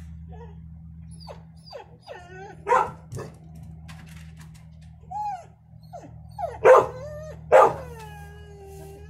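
A dog whining and yelping: short high whines that slide up and down, three loud sharp yelps about three, six and a half and seven and a half seconds in, and a long falling whine near the end.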